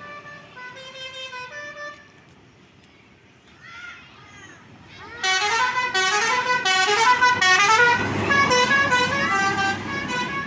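Bus 'telolet' horn, a set of tuned air horns, playing a melody of quick stepped notes: faint at first, then loud from about five seconds in. A low engine rumble comes in underneath near the end.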